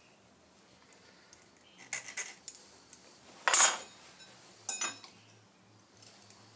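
A steel rule and a scriber clinking and scraping against a steel block while hole centres are marked out. There are a few short, sharp metallic sounds, the loudest about three and a half seconds in.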